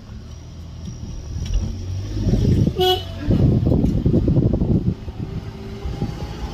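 Low rumble of a moving vehicle on a road, with a single short car-horn toot just before three seconds in.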